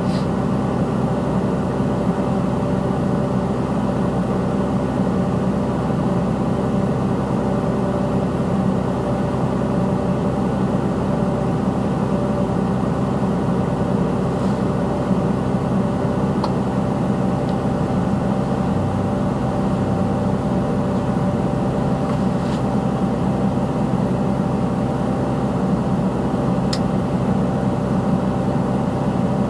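Caterpillar 320C hydraulic excavator's diesel engine running steadily at an even speed, with no revving.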